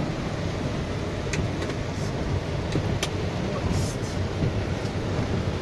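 Steady low rumble of a car's engine and tyres heard from inside the cabin while driving on a rain-wet road, with a few light ticks scattered through it.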